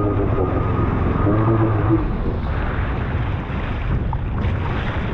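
Jet ski engine running at low throttle with water wash. Its pitched note fades after about two seconds as the ski slows toward shore, leaving splashing water and wind noise.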